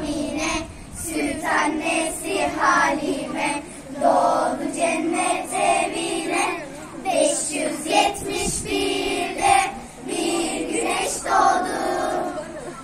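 A group of children singing an ilahi, a Turkish Islamic hymn, together as a choir in continuous phrases.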